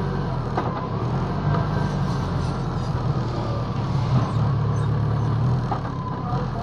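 BMW K1200LT motorcycle's four-cylinder engine running at low road speed, a steady low hum, heard from on board the bike.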